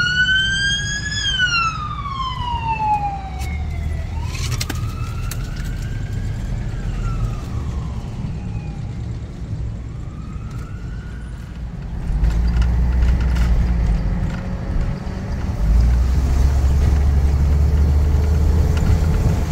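A siren wailing, rising and falling in pitch in slow sweeps that grow fainter and die out after about ten seconds. Under it, the steady low rumble of the motorhome's engine and road noise inside the cab, which gets louder about twelve seconds in.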